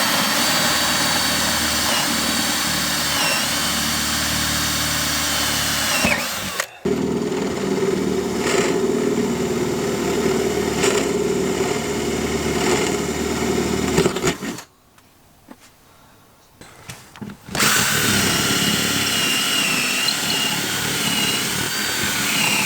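Electric jigsaw cutting a circular porthole hole through the boat's cabin wall. It runs in three spells, with a short break about six seconds in and a longer one of about three seconds around the middle, and its pitch shifts from spell to spell.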